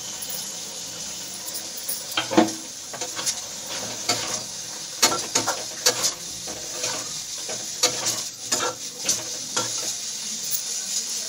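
Flat metal spatula scraping and clinking against a metal kadhai as a drumstick and potato curry is stirred, over a steady sizzle from the pan. The scrapes and knocks come in irregular strokes from about two seconds in.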